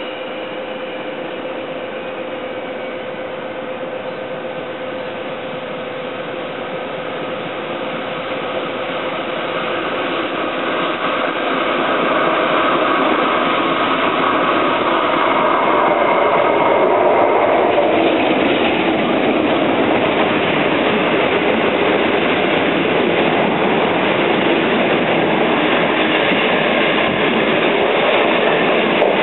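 DF11 diesel-electric locomotive hauling 25Z passenger coaches through the station without stopping. It grows louder over the first twelve seconds as it approaches. About halfway through the sound turns into an even rush as the coaches pass at speed.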